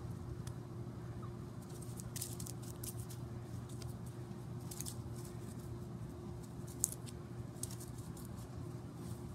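Light rustles and ticks of a Dalmatian puppy's paws moving on grass, coming in short clusters, over a steady low hum.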